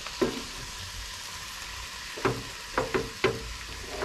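Julienned cabbage, carrots and bell peppers sizzling steadily in a frying pan as they are stir-fried. A wooden spoon stirs them, with a few sharp clacks against the pan: one near the start and a cluster of four from about two to three and a half seconds in.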